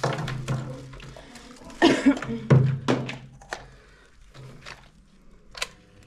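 Hard plastic knocks and clicks, several separate hits spread over a few seconds and loudest in the middle, as the parts of a new pedestal fan are handled and fitted together.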